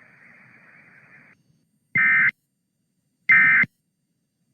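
Emergency Alert System end-of-message data bursts: short, loud bursts of buzzing digital code, two about 1.3 s apart and a third starting at the very end, signalling that the alert is over. Before them, a faint broadcast hiss cuts off about a second and a half in.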